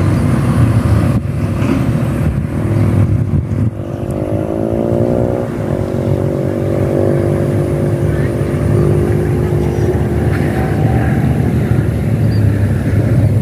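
A motor vehicle engine, its pitch rising about four seconds in and then holding steady for a few seconds before fading, over a constant low rumble.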